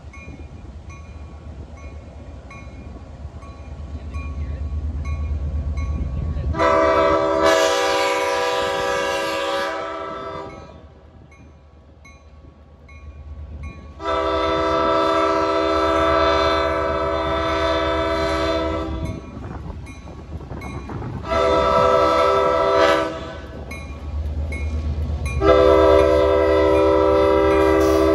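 Low rumble of passenger cars rolling past on the rails, then an approaching locomotive's horn sounding four blasts: long, long, short, long. This is the standard grade-crossing warning signal.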